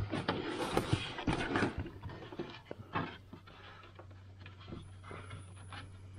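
Clicks and knocks of hard plastic dash parts being handled: the instrument cluster and headlight switch housing of a 1978 Chevy Nova. The handling noises are dense for about three seconds, then thin out, over a steady low hum.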